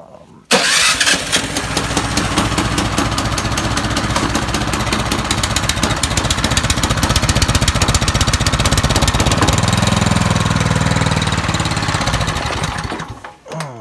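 Snowblower's gasoline engine starting suddenly about half a second in and then running steadily on choke as a cold start, warming up.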